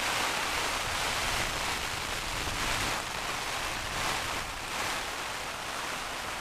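Heavy rain lashing down steadily on the fabric of a small tent, heard from inside, a dense hiss that swells slightly now and then.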